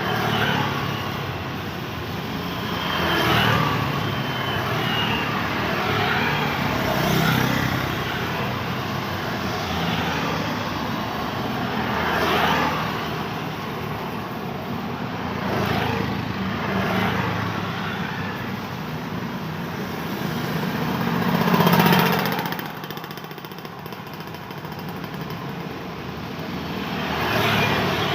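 Road traffic on a busy street: cars and motorcycles pass one after another, about nine in all, each swelling up and fading away over a steady hum of traffic. The loudest pass comes a little over three quarters of the way through.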